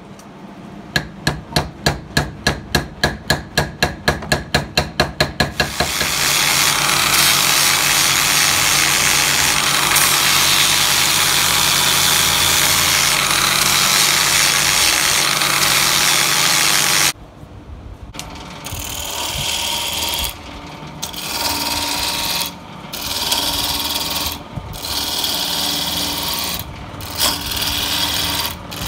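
A quick run of regular knocks, about four a second. Then an angle grinder with a sanding disc runs steadily, sanding the wooden face of a segmented bowl blank, and cuts off suddenly. After that a lathe gouge cuts into a spinning wooden blank in repeated passes with short pauses between them.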